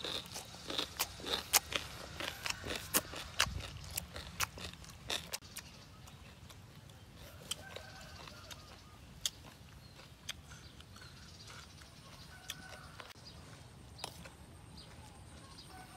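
Close-up crunchy chewing of a mouthful of shrimp and papaya salad, dense sharp crunches for about five seconds. After that it is quieter, with only an occasional crunch and faint bird calls in the background.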